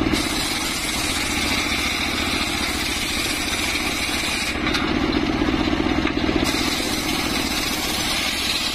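Homemade engine-driven circular saw bench running, its engine pulsing steadily while the spinning blade rips planks of old mahogany. The cutting noise eases for a moment a little past halfway, then picks up again as the next board is fed through.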